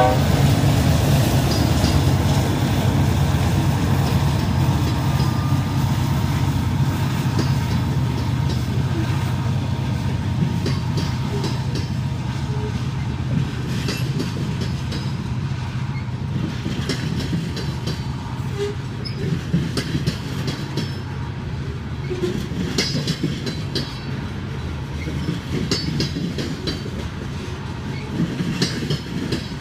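Covered hopper cars of a grain train rolling past, their wheels clicking over rail joints, over a steady low rumble from the lead diesel locomotives pulling away under power. The rumble slowly fades, and the clicks become more frequent from about halfway through.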